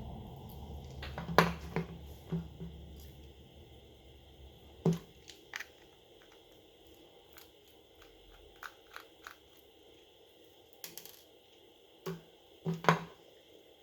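Small sharp clicks and taps of hand tools and plastic or metal parts being handled while a smartphone is taken apart. A low hum fades out over the first few seconds.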